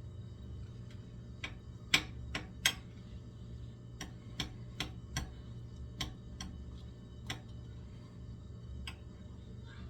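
Irregular sharp clicks and clinks of a spoon against a plate while eating a meal of cassava leaf and rice, the loudest two about two seconds in, over a steady low room hum.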